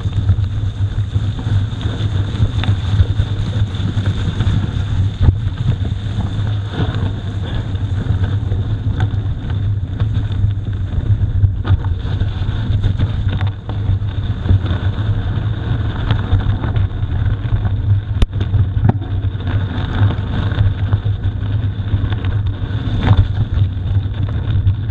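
Mountain bike rolling over a rough gravel road: a steady low tyre rumble with scattered rattles and knocks, and wind buffeting the microphone.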